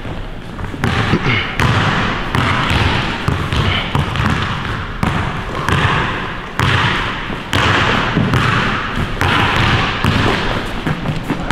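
A basketball being dribbled on a hardwood gym floor: sharp bounces repeating about once a second, echoing in the hall.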